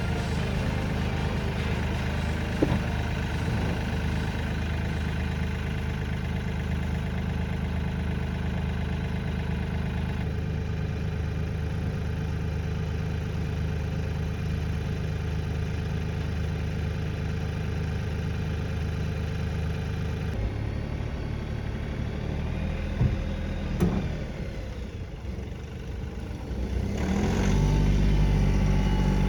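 Kioti CK3510 compact tractor's diesel engine running steadily, with a couple of sharp knocks a few seconds before the end, a short quieter dip, then the engine louder again for the last two seconds.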